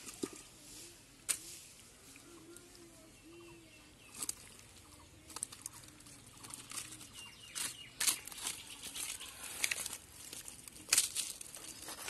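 A stick scraping and prodding in a hole in dry mud among dead leaves and twigs: a series of sharp scratches and crackles, sparse at first and getting busier and louder about halfway through.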